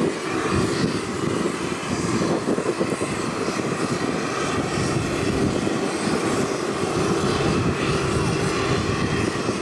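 Boeing 747-8F freighter's four GEnx-2B turbofan engines running as the jet rolls along the runway after landing: a steady, dense jet roar.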